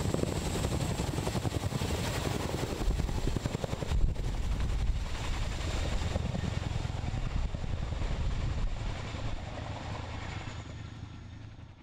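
Boeing CH-47 Chinook twin-rotor helicopter flying overhead, its rotors beating with a steady high whine over them. The sound fades out near the end.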